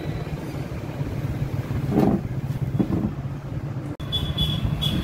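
Steady low engine rumble, with a couple of brief knocks about two seconds in. A sudden cut near the end brings in a high, pulsing whine.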